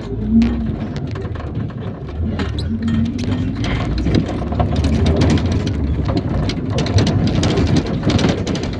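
IVECO Daily 50-140 minibus running, heard from inside the cabin: a low engine rumble under a steady clatter and rattle of the body and fittings.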